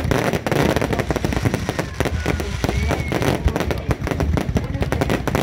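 Aerial fireworks barrage going off in a dense, unbroken stream of rapid bangs and crackles.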